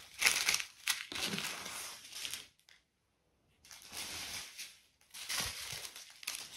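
Small clear plastic bags of diamond painting drills crinkling and rustling as they are handled. There is a short break of about a second midway, then the rustling starts again.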